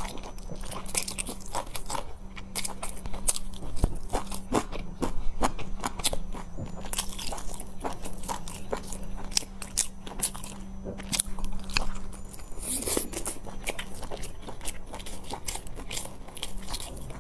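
Close-miked chewing and biting of large pan-fried stuffed buns: a dense, irregular run of small wet mouth clicks and soft crunches, with no talking. A faint steady hum lies underneath.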